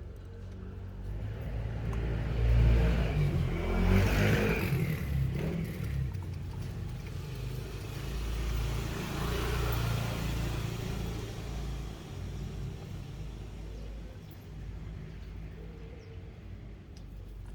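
Motor vehicles passing by: a low engine rumble swells and fades twice, loudest about three to four seconds in and again about nine to ten seconds in.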